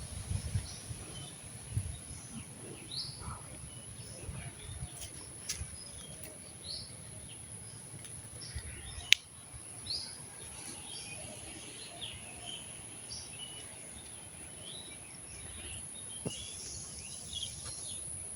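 Rural outdoor ambience: a steady high-pitched insect drone with scattered short bird chirps. There are a few low rumbles in the first couple of seconds and a single sharp click about nine seconds in.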